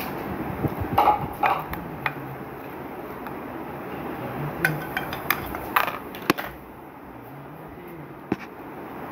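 Red silicone spatula stirring chopped fruit in a glass bowl: a scatter of sharp clicks and knocks against the glass, bunched about a second in and again from about four and a half to six and a half seconds, over a steady low hum.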